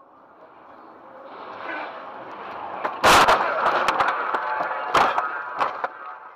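Car crash recorded by a dashcam inside the car: rising road noise, then a sudden loud bang about three seconds in as the car leaves the road. A run of rattling cracks and knocks follows as it bounces over rough ground, with a second heavy bang about two seconds later.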